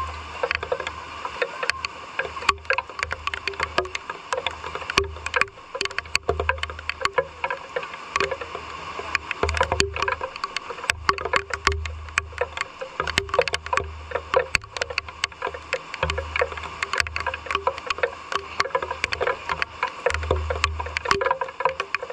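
Rain falling steadily, with many irregular drips tapping and splashing close by, and intermittent low rumbles underneath.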